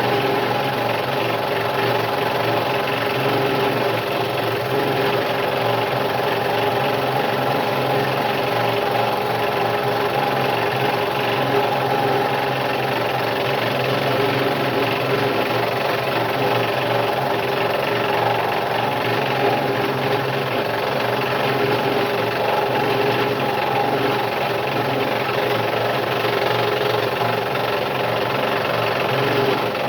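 Scroll saw running steadily, its reciprocating blade cutting through wood with an even, unbroken hum.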